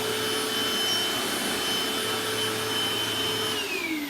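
2005 Eureka Optima vacuum cleaner running at a steady whine. About three and a half seconds in it is switched off and the motor winds down in a falling whine.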